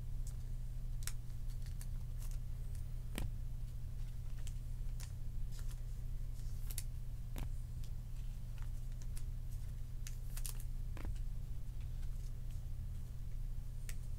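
Trading cards and clear plastic card holders being handled: scattered light clicks and taps at irregular intervals, over a steady low electrical hum.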